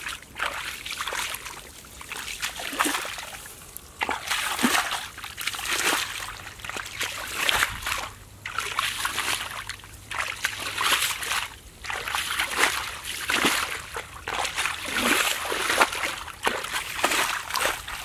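Splashing and sloshing in shallow muddy water as bare feet wade through it and hands grope in it, in a run of irregular splashes about half a second to a second apart.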